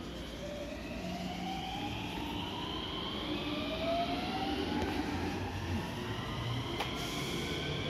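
JR West 223 series 2000-subseries electric train pulling out and accelerating, its traction motor whine rising steadily in pitch in several tones at once over a low wheel rumble. A single sharp click comes near the end.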